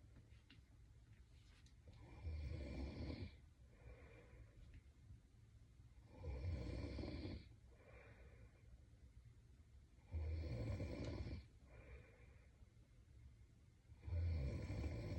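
A sleeping woman snoring in a steady rhythm: four snores about four seconds apart, each lasting about a second, with a softer breath between them.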